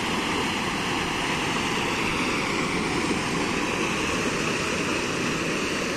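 Floodwater of a swollen stream rushing and churning over a drop: a steady noise of turbulent water.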